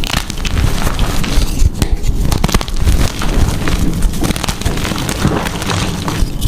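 Blocks of gym chalk being crushed and crumbled, a dense run of crunchy crackles.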